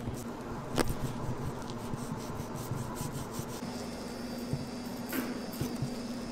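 A long kitchen knife slicing through raw pork, the blade rubbing as it is drawn through fat and meat, over a steady low hum. A sharp click comes just under a second in, and another a little past the five-second mark.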